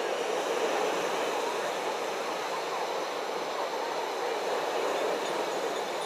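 Steady beach ambience: a constant wash of surf-like noise with a faint murmur of distant voices.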